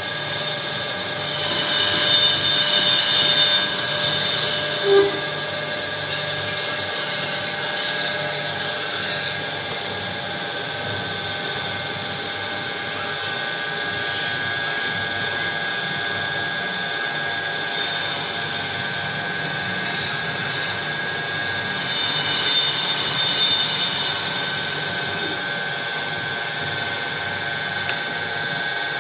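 Lathe running with a steady multi-tone whine, with the cutting tool working the spinning workpiece in two louder, hissing stretches, one starting about two seconds in and another a little past twenty seconds.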